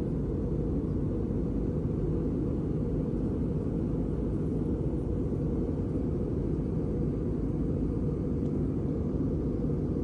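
A steady low rumble of noise with no distinct events.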